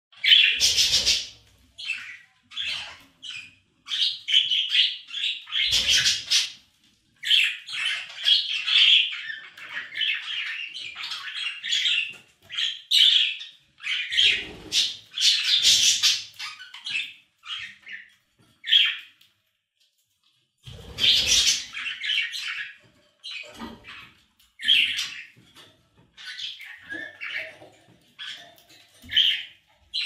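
Pet budgerigars (parakeets) chirping and warbling in quick, busy bursts, with a short pause a little after two-thirds of the way through.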